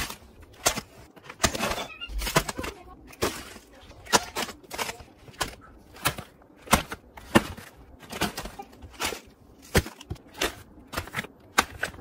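Clear plastic bags of dried parrot food being handled: irregular sharp crackles and clicks, one to three a second.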